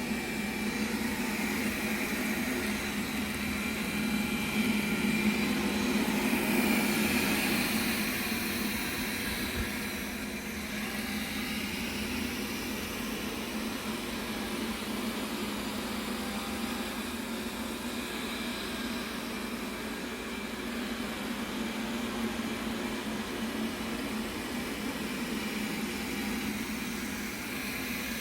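Robot vacuum cleaner running with a steady whir, a little louder for a few seconds near the start.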